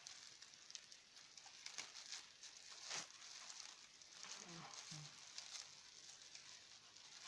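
Faint crinkling and crackling of clear plastic wrap being handled and pulled at around a pair of badminton racquets, with a sharper crackle about three seconds in.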